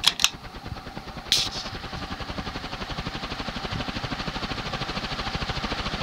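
Clicks of a ceiling fan's pullchain switch right at the start, then an Evergo 36-inch industrial ceiling fan with stamped steel blades spinning up to high speed. Its air noise pulses in an even rhythm and grows steadily louder, and the fan has a slight shimmy.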